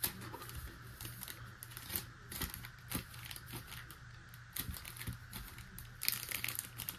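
Trading-card pack wrappers crinkling and crackling as a stack of sealed packs is handled and shuffled, the crackles coming thicker near the end.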